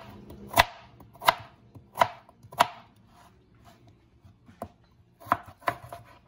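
Kitchen knife chopping peeled russet potatoes into cubes on a plastic cutting board, each cut ending in a sharp knock of the blade on the board. Four evenly spaced chops come in the first three seconds, then a pause of about two seconds, then a few more chops near the end.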